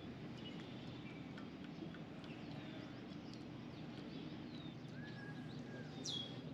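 Birds chirping and calling with short, thin, high notes, a held whistle about five seconds in and a loud downward-sweeping whistle near the end, over a faint steady low rumble of outdoor ambience.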